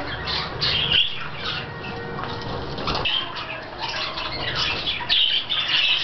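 A colony of budgerigars chattering and squawking, with many short high calls overlapping without a break.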